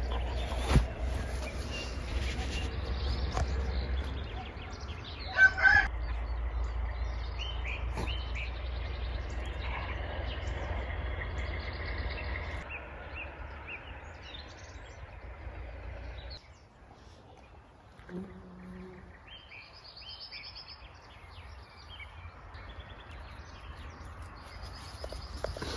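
Rural yard ambience: songbirds chirping on and off, with chickens and a short louder call about five seconds in. Under it runs a low steady rumble that cuts off about two-thirds of the way through.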